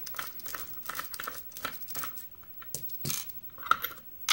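Small metal clicks and scraping from a mortise lock cylinder being handled while its back is taken off. The clicks come irregularly, with a louder cluster about three seconds in and a sharp click at the end.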